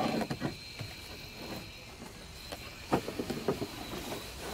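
Cardboard box of a diecast model car being handled and opened: scattered rustles and light taps, with one sharp click about three seconds in.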